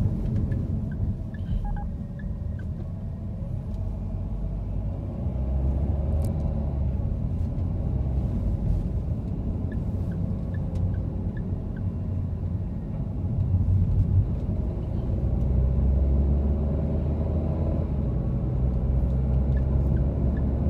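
Car driving on a city street, heard from inside the cabin: a steady low rumble of engine and road noise that swells a little now and then.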